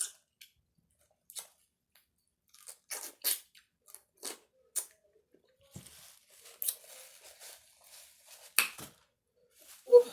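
A person chewing and eating food close to the microphone: irregular short smacks and crunches, more of them and louder in the second half.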